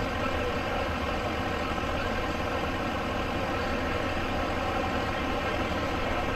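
A heavy vehicle engine idling steadily, an even low rumble.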